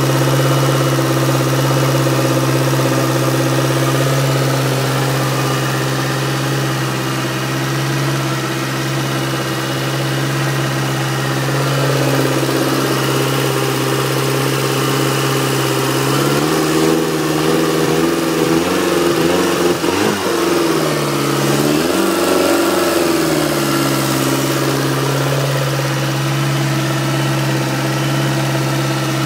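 Outboard motor with its cowling off, running on a garden-hose flushing hookup: a steady idle that is revved up and down twice around the middle, then settles back to idle.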